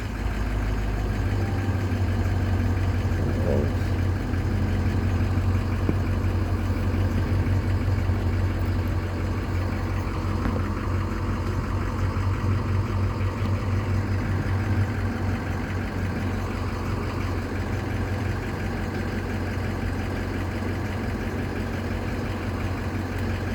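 Ford 6.0 Power Stroke V8 turbo-diesel in a 2006 F-350 running at idle, just started on a replacement injector control module (FICM). It settles slightly quieter about two-thirds of the way through.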